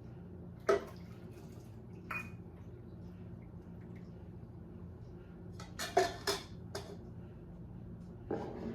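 Kitchen utensils and dishes clinking: a few sharp knocks and clinks, one near the start, one about two seconds in, a quick cluster around six seconds and another near the end, over a steady low hum.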